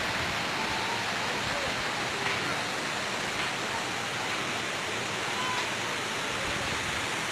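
Steady rush of water flowing through a trout farm's concrete raceways and channels.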